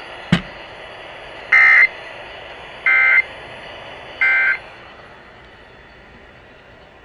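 Emergency Alert System end-of-message signal over broadcast radio: three short bursts of buzzing digital data tones, a little over a second apart, marking the close of the test alert. A single sharp click comes just before them, over a low hiss.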